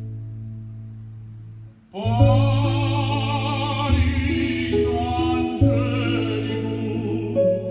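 Recorded music played over a hi-fi of a Denon DCD-520 CD player, Luxman C-12 preamplifier and Tandberg TPA-3003 power amplifier, heard from floor-standing loudspeakers. Held notes fade away, then about two seconds in a singing voice with wide vibrato comes in over steady bass notes.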